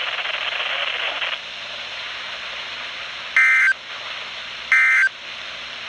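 NOAA Weather Radio SAME end-of-message signal: two short bursts of high, buzzy digital data tone about a second and a half apart, over radio static. The static is louder for the first second and a half.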